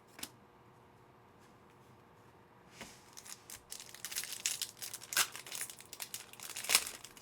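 A single click, then from about three seconds in a trading-card pack wrapper being torn open and crinkled in the hands, a dense run of sharp crackles that is loudest near the end.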